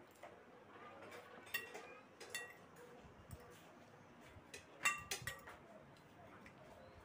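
Metal fork clinking against a glass salad bowl while picking up lettuce: several short ringing clinks, a group about a second and a half in and a louder group around five seconds in.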